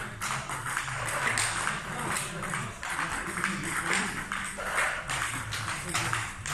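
Table tennis ball struck by a bat and bouncing on the table, sharp light pings repeating about once or twice a second during a drill, with music playing underneath.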